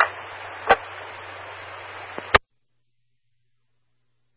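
Scanned fire-dispatch radio channel left open after a transmission: a steady hiss with a low hum, a click about two-thirds of a second in, then a sharp squelch-tail click about two and a half seconds in that cuts it off to silence.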